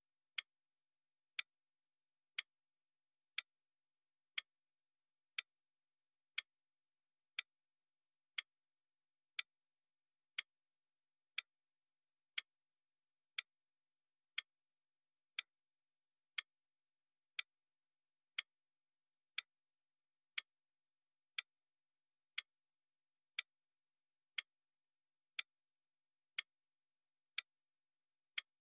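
Clock-tick sound, one sharp tick about every second, keeping time with a countdown timer.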